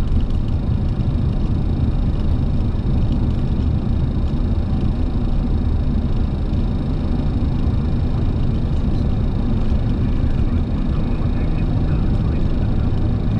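Flight-deck noise of a Boeing 737-800 during its landing rollout: a steady, even low rumble from the airliner rolling along the runway.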